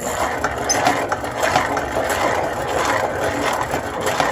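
Manual pancake batter machine whisking custard: a steady, fast mechanical rattle.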